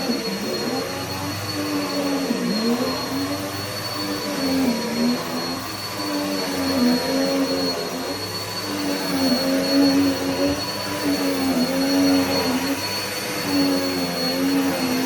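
Vacuum cleaner running, with a steady high whine over a motor hum whose pitch dips and recovers every second or two.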